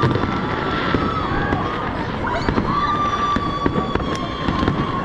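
Fireworks going off in a continuous barrage: dense low booms with many sharp crackles on top. Long shrill whistling tones, held for a second or more, run over the bangs.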